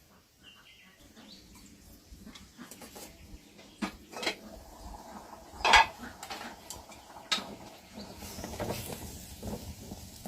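Clinks and knocks of dishes and utensils being handled, with one sharper knock about halfway through.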